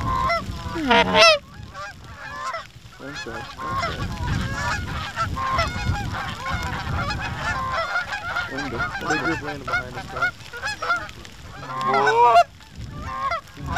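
Canada geese honking continuously as a flock circles overhead, mixed with loud, close honks from hunters' goose calls, strongest about a second in and again near the end.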